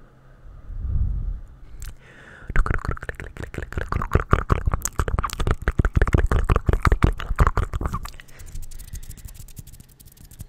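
Fast wet mouth sounds, rapid clicks and pops made right at a microphone cupped in the hands, running densely for about five seconds. A short low rumble about a second in comes before them, and fainter scattered ticks follow.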